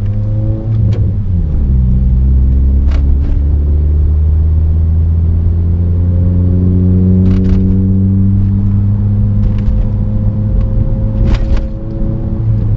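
10th-gen Honda Accord's engine and exhaust heard while driving, the pitch dipping about a second in and then climbing slowly and steadily as the car gathers speed.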